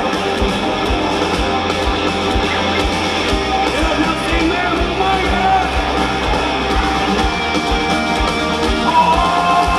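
A rock band playing live and loud, with electric guitars and a steady drum beat.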